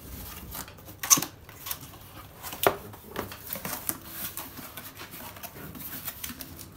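Cardboard box being opened by hand: flaps rubbing, scraping and rustling, with two sharp snaps, one about a second in and one about two and a half seconds in.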